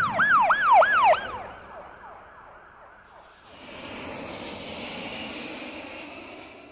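A warbling siren-like sound effect, its pitch swooping up and down about four times in the first second, then fading. About three and a half seconds in, the steady roar of jet fighter engines comes in and holds, fading near the end.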